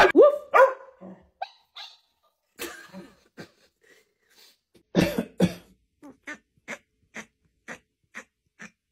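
A dog gives two short, cough-like barks about five seconds in. After that come soft short sounds, evenly spaced at about two a second.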